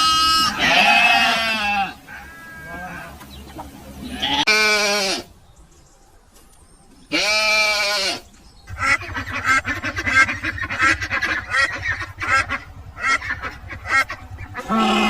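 Animal calls: three loud, drawn-out calls in the first eight seconds, then a run of quick short calls.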